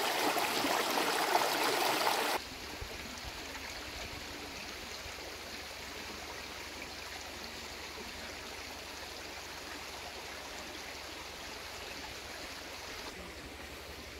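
Shallow stream running over flat rock slabs, a steady rush of water that cuts off suddenly about two seconds in. A quieter steady hiss with a low rumble follows.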